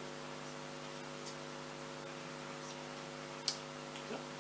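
Steady electrical mains hum, with a single sharp click about three and a half seconds in and a fainter tick just after.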